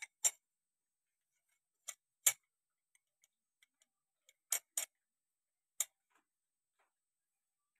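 Scattered short metal clicks and clinks, about seven spread unevenly with quiet between, as steel bolts are set through a homemade flat steel bar puller resting on a tractor clutch pressure plate.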